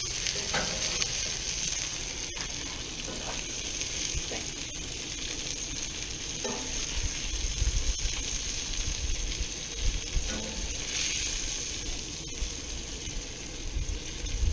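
Mahi-mahi and snapper fillets sizzling with a steady hiss on a very hot grill.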